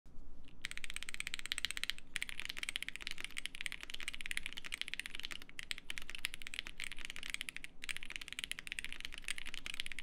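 Fast, continuous typing on a Bubble75 prototype mechanical keyboard fitted with Pinoko switches: a dense run of key clacks, broken by brief pauses about two, five and a half, and eight seconds in.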